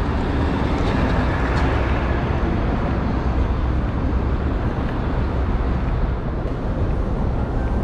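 Steady rumble of city street traffic, an unbroken low noise with no single vehicle standing out.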